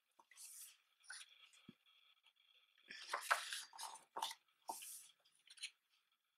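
Paper pages of a photo book being turned and handled: a series of soft paper rustles and swishes, the loudest about three seconds in.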